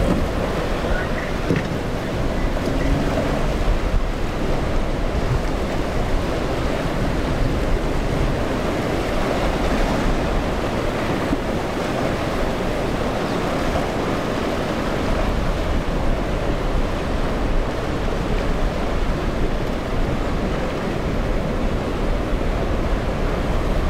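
Steady rush of ocean surf and breaking waves, with wind buffeting the microphone.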